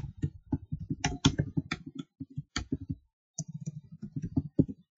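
Computer keyboard typing: a quick run of keystrokes, broken by a short pause about three seconds in.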